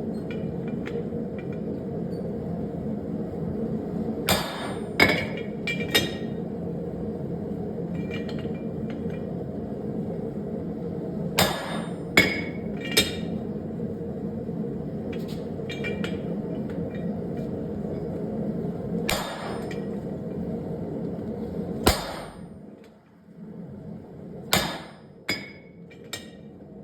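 Hammer blows on a blacksmith's guillotine fullering tool, fullering steel for a hammer head: sharp ringing metal-on-metal strikes, mostly in groups of two or three a second or so apart. Under them runs a steady low hum that drops away about three-quarters of the way through.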